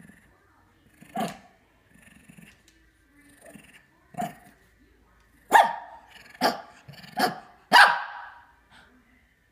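A dog barking in play: single sharp barks about a second in and about four seconds in, then a quick run of four louder barks.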